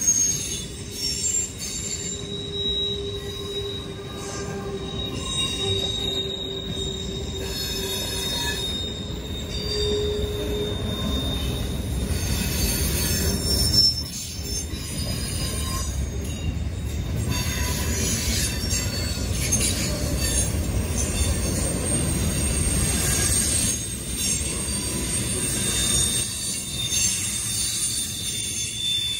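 Freight train cars rolling past with a steady low rumble, steel wheels squealing on the rails in thin, sustained high tones at several pitches that come and go.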